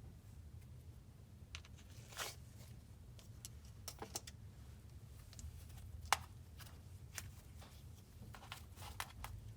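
Cloud slime being stretched and pulled apart, giving faint, scattered soft crackles and small tearing clicks over a low steady hum.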